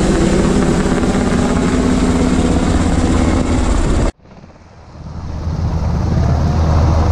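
UH-60M Black Hawk helicopter flying low overhead, its rotor and turbines loud and steady. The sound cuts off abruptly about four seconds in, then a helicopter's rotor noise builds up again as it approaches.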